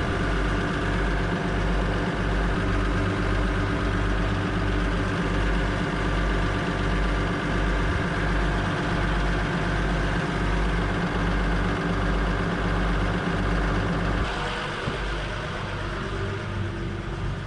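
Boat's inboard engine running steadily underway, a deep even drone with a regular pulse. About three-quarters of the way through the sound drops in level and changes character.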